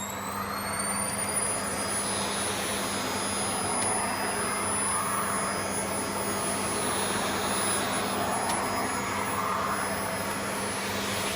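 Vacuum cleaner motor finishing its spin-up, its high whine rising and then holding steady about a second in, over a constant rush of suction air that swells and eases every couple of seconds.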